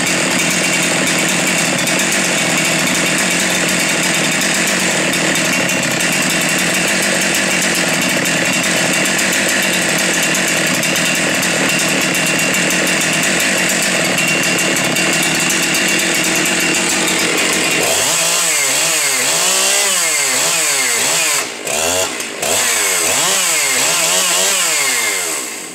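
Husqvarna 372 XP two-stroke chainsaw running at high speed, held steady for about eighteen seconds, then revved up and down over and over, with two brief drops near the end before it shuts off.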